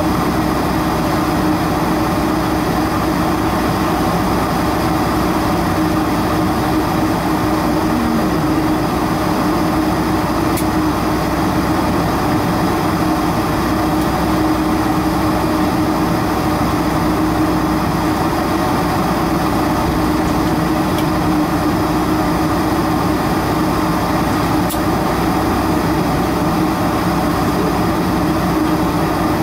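Steady cabin noise inside a Boeing 747-400 parked at the gate: air conditioning and the drone of an engine still idling while the aircraft waits for ground power, with a steady mid-pitched hum.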